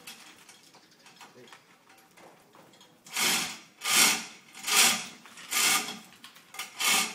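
A manual chain hoist ratcheting in five short bursts a little under a second apart, starting about three seconds in, one for each pull on its hand chain as it lifts a newly cast church bell.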